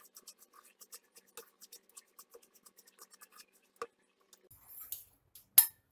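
A wooden spatula stirs and scrapes semolina roasting in ghee in a non-stick frying pan, making many quick, faint scratchy strokes. The stirring stops, and a sharp knock comes near the end.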